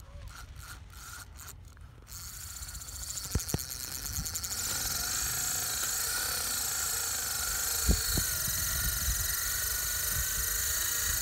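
The loosened drag on a spinning fishing reel paying out line as a kite pulls it off the spool. It ticks in separate clicks at first, then after about two seconds speeds up into a continuous buzz whose pitch wavers as the line runs faster and slower.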